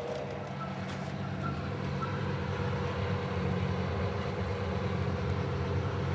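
Steady low droning hum of several even pitches over a rumble like distant traffic, unchanging throughout: the kind of 'strange sound from the sky' audio that is judged to be a faked recording laid over the footage.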